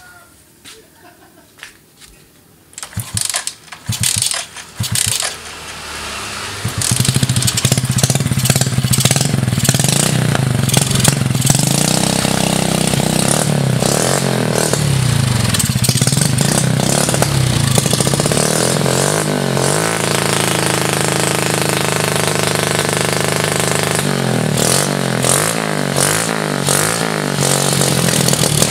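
Rebuilt Suzuki Smash four-stroke single-cylinder motorcycle engine being started: a few short cranking bursts, then it catches and runs loudly, revved up and down repeatedly through a makeshift muffler. This is its first sound check after the cam chain was tightened and fresh oil put in.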